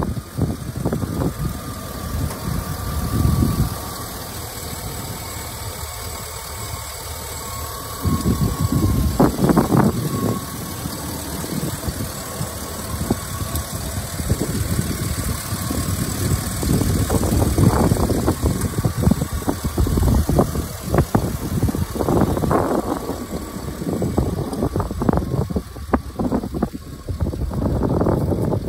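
Chevrolet Silverado 2500HD's Vortec gasoline V8 idling with the hood open, its level swelling and easing unevenly.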